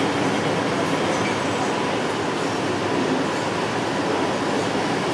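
Heritage passenger carriages rolling past on the rails, a steady, even rumble and rush of wheel and running noise.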